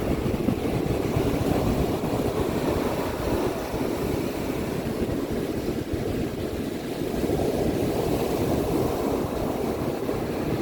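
Ocean waves breaking and washing on the shore at night: a steady, low, rumbling surf that eases a little partway through and builds again.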